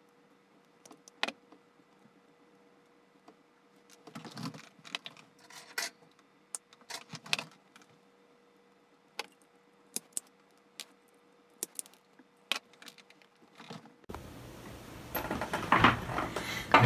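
Sharp clicks and snips of a pair of self-adjusting wire strippers, with the short rustle of insulated wires being handled. Louder knocks and clatter near the end.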